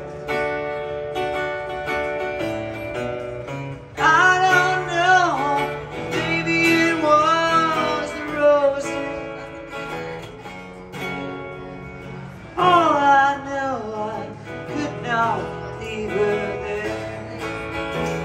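Acoustic guitar played live through an amplifier, with a wordless sung melody gliding over it in three phrases, the first coming in sharply about four seconds in.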